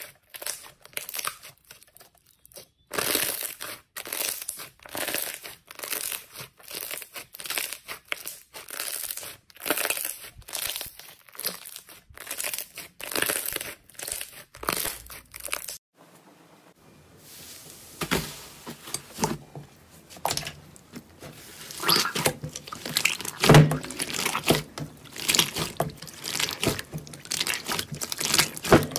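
Slime being pressed and squeezed by hand, with dense, irregular crackling and crunching. The sound changes abruptly about halfway through to a second batch with deeper crunches.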